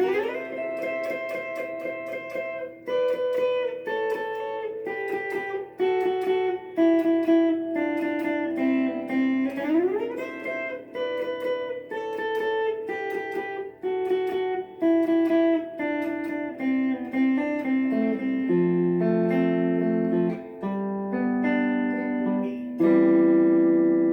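Electric guitar, a Squier Bullet Telecaster through a small 15-watt Monoprice amp, picking a single-note melody. It slides up in pitch about ten seconds in, then moves to fuller, lower held notes near the end.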